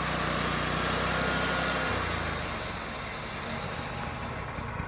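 Wood-Mizer portable sawmill running, with a steady engine note and a high hiss; the engine note drops about two seconds in and the hiss fades out near the end.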